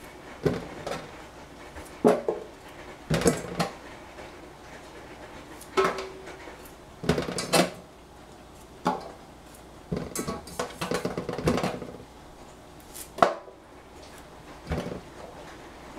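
Irregular clanks and knocks of a kitchen knife and small summer squash and cucumbers against a stainless steel saucepan and sink as the vegetable ends are trimmed off, some with a short metallic ring.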